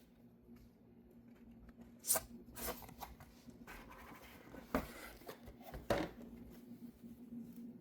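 Close handling noises: four sharp clicks or knocks with some rustling between them, over a faint steady hum.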